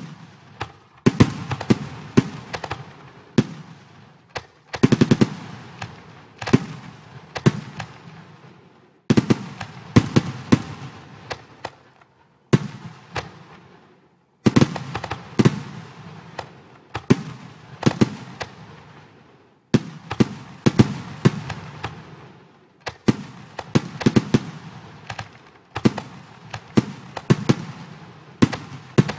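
Fireworks sound effects from a fireworks display simulation: shells bursting with sharp bangs, each followed by a fading crackle, in clusters of several bursts. The sound cuts off suddenly to silence a few times between clusters before the next burst.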